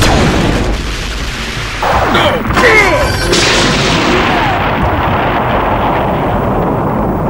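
Added fight sound effects of a robot figure slamming into the ground: a heavy boom and crash about two seconds in, then a long noisy tail that slowly fades.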